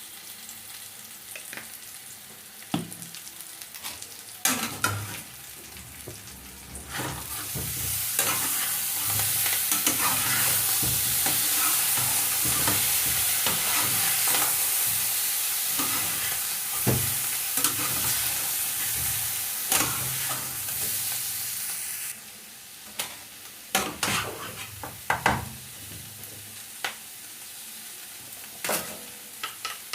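Potatoes and onions frying in a pan, stirred with a utensil that clicks and scrapes against it. About seven seconds in, a loud sizzle swells up and holds for about fifteen seconds, then drops away suddenly, leaving the quieter frying and stirring.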